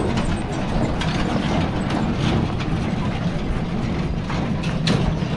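Steady low outdoor rumble with scattered short clicks and knocks.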